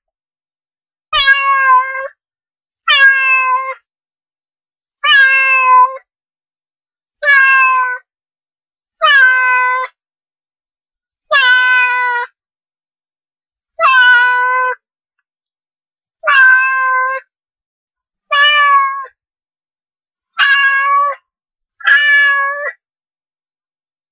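A domestic cat meowing over and over, eleven meows about two seconds apart, each under a second long, with dead silence between them.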